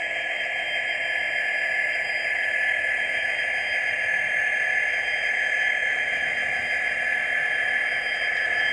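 Hornby TTS sound decoder playing a Class 66 diesel engine sound through the model locomotive's small onboard speaker, running steadily as the locomotive pulls away after the brake release.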